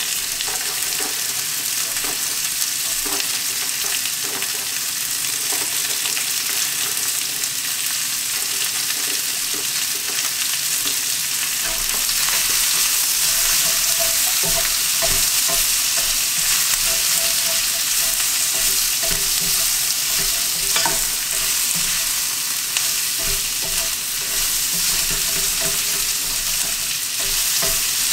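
Sliced onion, bell pepper and green beans sizzling in hot oil in a wok, stirred and tossed with a silicone spatula: a steady sizzle with light scrapes of the spatula against the pan, a little louder about halfway through.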